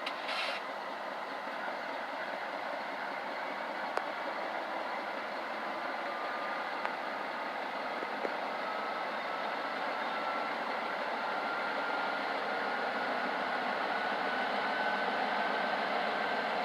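Train running past with a steady rolling rumble; a short burst of air hiss comes right at the start, and a thin whine slowly rises in pitch through the second half.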